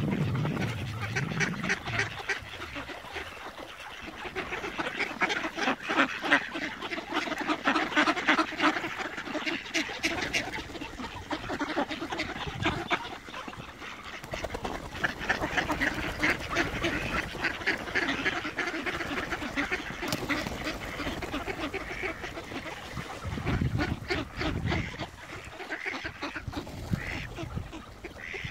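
A flock of mallards quacking, many calls overlapping in a continuous chatter.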